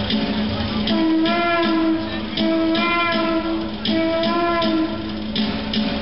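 Live folk dance music: a wind-instrument melody over a steady low drone, with regular percussion beats. The melody comes in about a second in and drops out shortly before the end, leaving the drone and beat.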